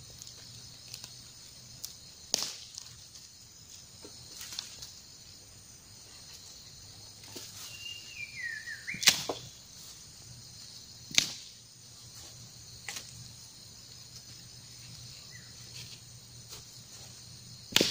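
Half a dozen sharp cracks or snaps spaced a few seconds apart, the loudest about nine seconds in, over a steady high hiss. A short falling squeak comes just before the loudest crack.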